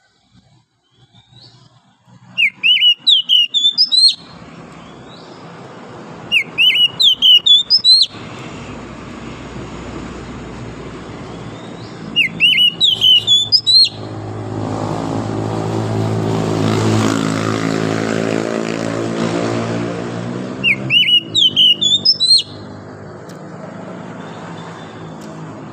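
Oriental magpie-robin singing in four loud bursts of rapid, sweeping whistled phrases, each lasting one to two seconds. From about a third of the way in, an engine drone swells, is loudest a little past halfway, then eases off.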